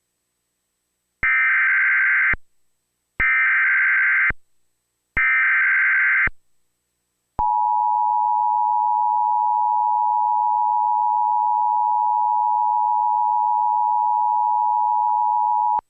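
Emergency Alert System SAME header from a Trilithic EASyCAST, sent three times as harsh digital data bursts of about a second each. It is followed by the two-tone EAS attention signal (853 and 960 Hz), a steady dual tone held for about eight seconds that cuts off sharply. Together they announce an incoming severe thunderstorm warning.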